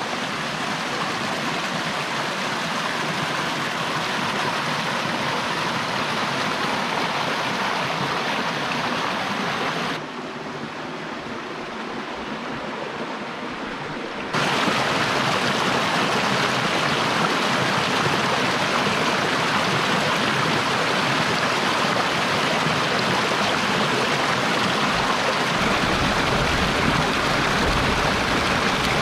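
Rocky mountain creek running over stones: a steady rush of water. It drops quieter for a few seconds about ten seconds in, then comes back louder, and near the end the water churns through a small white-water cascade.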